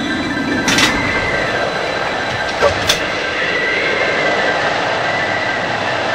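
A loud, steady rushing roar with a faint high ringing tone running through it. It is broken by a sharp crack about a second in and another near three seconds in.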